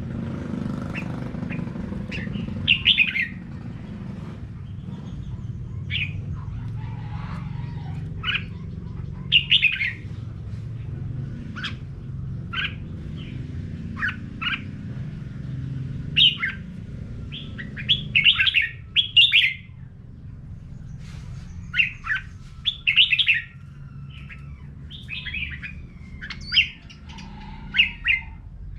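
Red-whiskered bulbul singing: short, bright whistled phrases, each under a second, repeated every second or two. A low steady rumble lies beneath and drops away about two-thirds of the way through.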